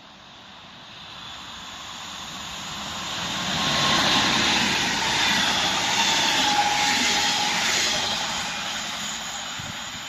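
Electric locomotive EU47-008 passing through: a rushing wheel-and-rail noise that swells, peaks for a few seconds with a faint whine that drops slightly in pitch, then fades away.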